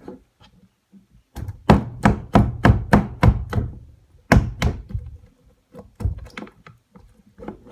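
Slime being worked by hand against a hard surface: a quick run of slapping thuds, about three a second, then a second run and a few softer ones near the end.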